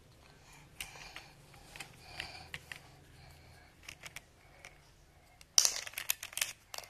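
Plastic parts of a toy fire truck being handled while it is taken apart: scattered light clicks and taps, then a quick run of louder clattering clicks near the end.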